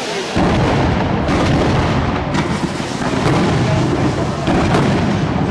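Fireworks display: aerial shells bursting in quick succession, a dense run of overlapping bangs and crackle, with a sharp new bang about a third of a second in and more roughly every second after.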